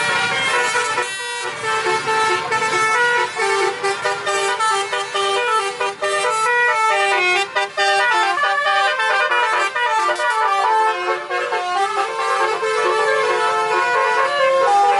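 Bus 'telolet' musical horn playing a tune: a run of honked notes that change pitch quickly, one after another.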